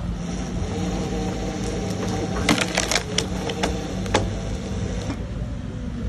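Mini excavator engine running steadily while its hydraulic screw-cone log splitter bores into a log. Sharp wood cracks come in a quick cluster about halfway through as the log splits, with one more crack shortly after.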